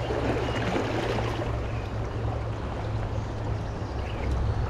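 River water flowing steadily over a run.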